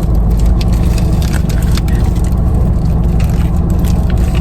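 Steady low rumble of a moving car heard from inside the cabin, with scattered small crackles and clicks over it.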